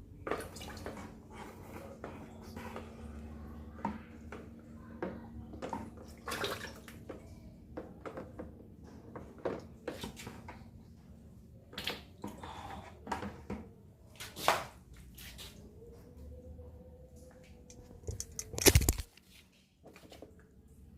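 Water splashing, dripping and trickling with irregular knocks as a catfish tank is drained by siphoning, with one louder thump near the end.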